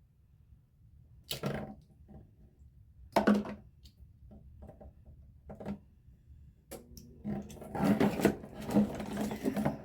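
Handling sounds of shower head parts: two clear knocks, then dense rustling and clattering over a low hum during the last few seconds.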